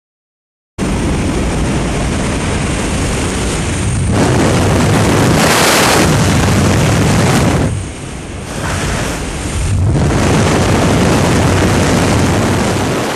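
Loud rushing wind blasting over a skydiving camera's microphone at altitude. It starts abruptly about a second in, swells around the middle, dips briefly, then builds again.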